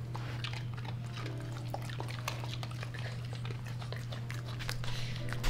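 Boston terriers chewing dog treats: a run of short, quick clicks and smacks over a steady low hum.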